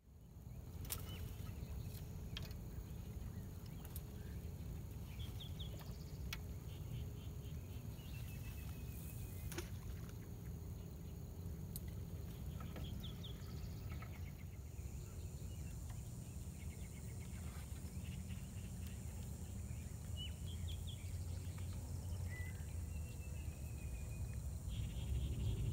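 Riverside ambience: a steady low rumble with birds calling every few seconds in short chirpy clusters and thin held whistles, and a few faint clicks.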